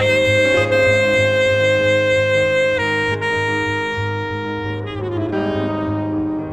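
Jazz quintet playing an instrumental tune: a saxophone holds a long note, steps down to another about three seconds in, and slides lower near the end, over piano and bass accompaniment.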